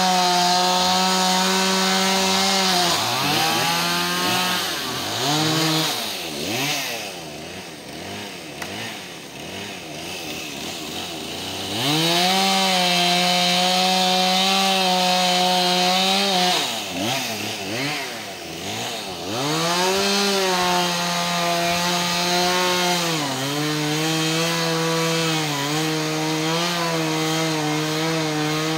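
Two-stroke chainsaw cutting up a fallen tree limb. It runs at full throttle through cuts, revs up and down between them, and drops to a quieter, lower run in the middle stretch. The pitch sags a little over the last few seconds.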